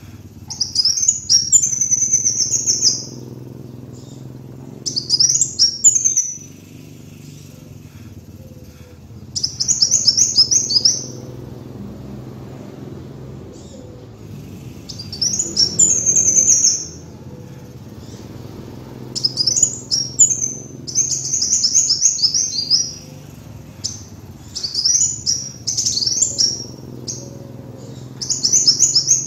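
Kolibri wulung sunbird singing: repeated bursts of fast, high-pitched twittering trills, each a second or two long, coming every few seconds, over a faint low hum.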